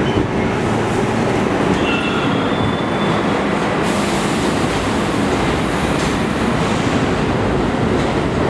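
Budd-built R32 subway train running along the station track: a steady loud rumble with rattling wheel clatter on the rails, and a faint high wheel squeal about two seconds in.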